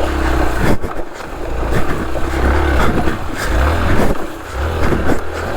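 Motorcycle engine running under way, with wind rushing over the helmet-mounted microphone.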